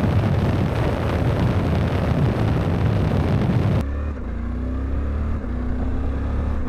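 Suzuki V-Strom 800DE riding at speed, with loud wind rushing over the microphone. About four seconds in, it cuts abruptly to a slightly quieter, steadier sound: the parallel-twin engine's drone and road noise.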